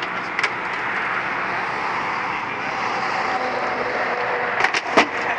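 Heil 5000 rear-loader garbage truck running steadily at the curb, with short knocks as junk is loaded into its hopper. A quick cluster of knocks and a thud as a box of junk goes in comes near the end, the last one the loudest.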